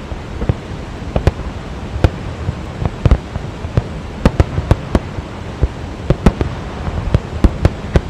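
Fireworks display: a rapid, irregular run of sharp bangs, several a second, over a steady rushing noise.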